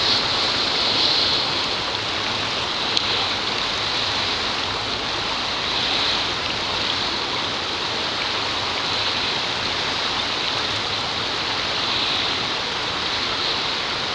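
Shallow rocky stream running over stones: a steady babble of water.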